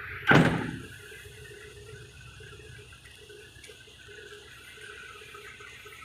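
A single loud slam at the Hitachi excavator's cab about a third of a second in, dying away within half a second, then a faint steady hum.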